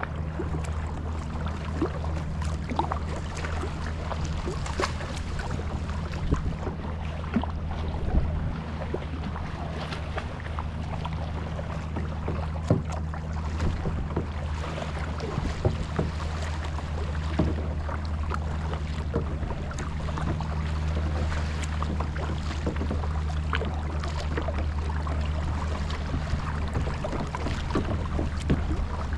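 Kayak paddling on open water: irregular small splashes and drips from the paddle blades, over a steady low hum.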